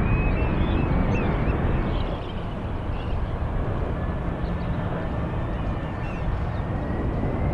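Four-turbofan jet engines of a Boeing C-17 Globemaster III running with a steady low rumble as the aircraft rolls on the runway. A faint whine rises slowly from about halfway through as the engines spool up for takeoff. Birds call in the first few seconds.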